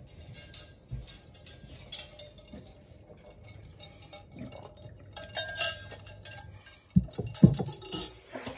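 Scattered light clinking and tinkling, thickest about five seconds in, followed by a few low thumps about seven seconds in.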